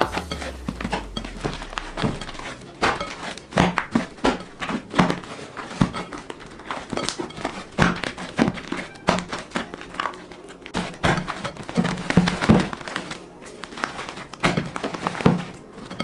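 Crunchy slime being kneaded and squeezed by hand, giving irregular crackles, pops and squelches.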